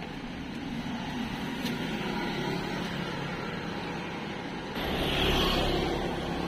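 Street traffic: vehicle engines running steadily, with a louder rushing sound starting about five seconds in.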